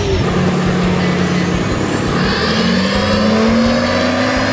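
Duramax turbo-diesel pickup engine pulling under load. Its note holds level, then climbs steadily through the second half, with a high whine rising above it.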